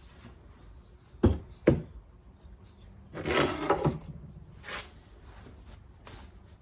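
Bench work on motorcycle fork parts: two sharp knocks in quick succession, then a rubbing scrape lasting about a second, a shorter scrape and a light click near the end.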